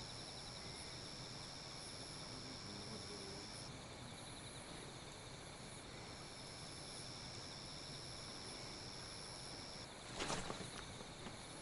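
Night insects calling: a faint, steady high-pitched trill that stops about four seconds in and starts again two seconds later, over a fainter pulsing chirr. A brief rustle near the end.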